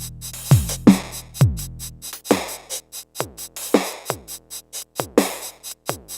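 Electronic drum pattern from an Endorphin.es Queen of Pentacles Eurorack module: drum hits that drop quickly in pitch, over fast hi-hat ticks and noisy snare-like hits. The deep low end drops out about two seconds in.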